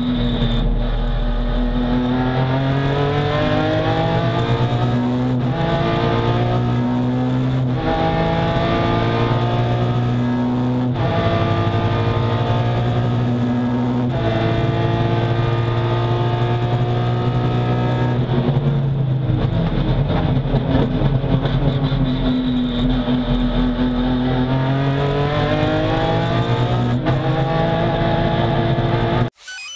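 BMW S54 3.2-litre straight-six of an E36 touring race car, heard from inside the cabin, revving up through the gears with about four quick sequential-gearbox upshifts. The revs then fall under braking and downshifts, rise again with one more upshift, and the sound cuts off suddenly just before the end.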